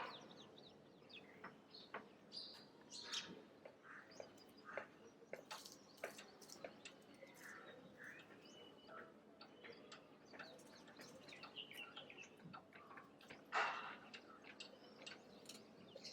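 Several birds chirping: many short, scattered chirps and quick whistles, faint against a quiet background, with one louder burst about two-thirds of the way through.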